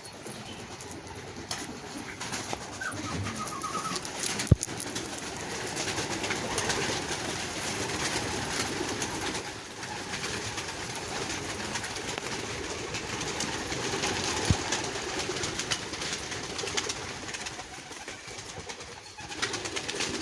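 Many domestic pigeons cooing together in a loft, with a sharp click about four and a half seconds in.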